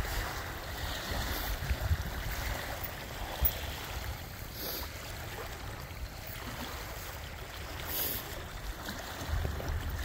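Small waves lapping against a rocky, gravelly shoreline, with a low rumble of wind on the microphone.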